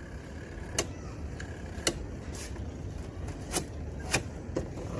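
Plastic timer knob on a Dawlance twin-tub washing machine being turned by hand, giving about six sharp, irregular clicks over a low steady rumble, as the stalled machine is tried again.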